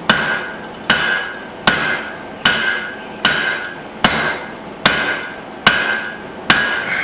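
Hammer blows on a hot spring-steel hatchet head being drawn out while it sits on a drift in its eye: nine evenly spaced strikes a little under a second apart, each followed by a short metallic ring.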